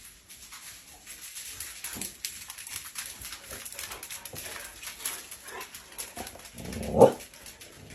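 A dog whimpering quietly amid faint scattered clicks, with one louder, short dog sound about seven seconds in.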